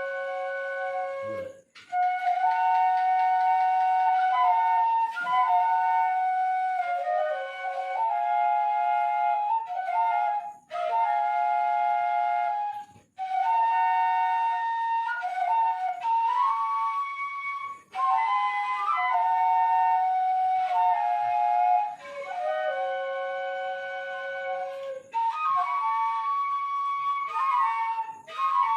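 Seruling emas, traditional bamboo flutes, playing a melody in two or more parts in harmony with held notes, the phrases broken by short breathing pauses.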